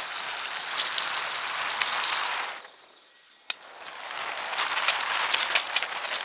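Fast-forwarded walking audio: a steady hiss crackling with rapid clicks from footsteps and camera handling. It drops out briefly about halfway through and comes back after one sharp click.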